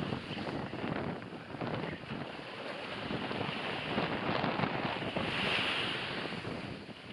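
Sea surf washing onto the shore, swelling twice, with wind buffeting the microphone.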